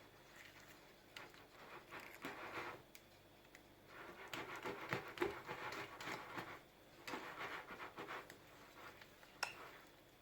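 Small wire whisk stirring thick pancake batter, scraping against the bowl in three spells of scratchy strokes, with a single sharp tap near the end.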